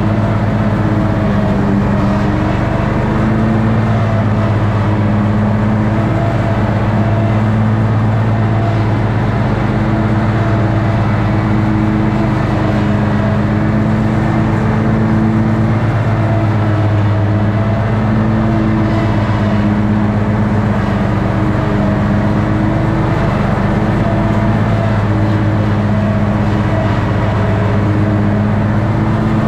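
Toro ride-on mower's engine running steadily under load while mowing grass, its pitch wavering slightly up and down.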